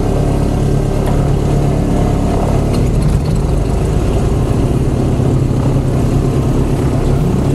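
Single-engine piston airplane engine and propeller idling steadily just after start, heard from inside the cockpit.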